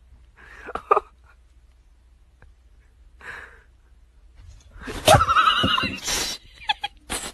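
A horse whinnying loudly, a long wavering call starting about five seconds in, with shorter, quieter sounds earlier; the sound cuts off abruptly at the end.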